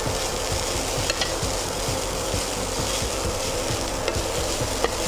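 Wooden spatula stirring and scraping grated coconut and curry leaves frying in a nonstick pan, with a steady sizzle underneath. There are a couple of light taps of the spatula, about a second in and again near the end. The coconut is being fried on medium flame toward light brown.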